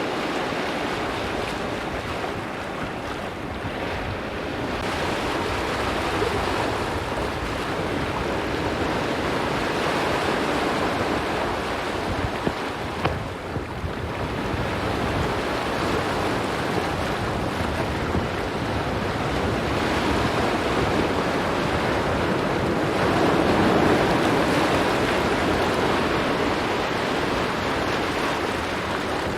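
Ocean waves washing onto a rocky shore, swelling and easing every few seconds, with wind buffeting the microphone.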